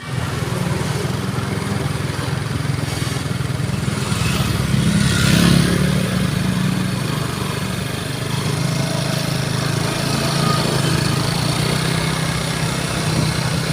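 A vehicle engine running steadily, swelling briefly about five seconds in.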